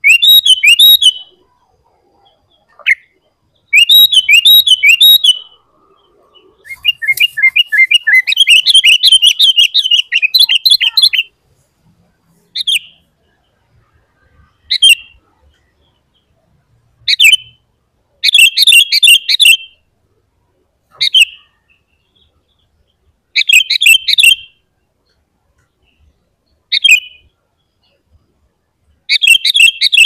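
Sooty-headed bulbul (kutilang) singing loudly: bouts of quick, bright chattering phrases, the longest about four seconds, broken up by short pauses and single short calls.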